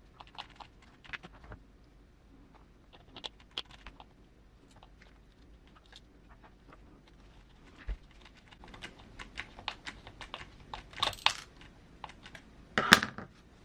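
Small hard plastic and metal parts of an RC crawler's wheels and hubs being handled by hand, making scattered light clicks and taps. The clicks grow busier in the second half, and there is one sharper clack near the end.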